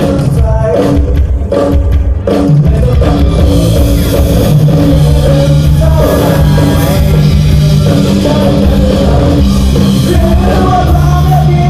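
Live rock band playing loudly through a concert PA: drum kit strokes lead for the first couple of seconds, then the full band comes in with singing.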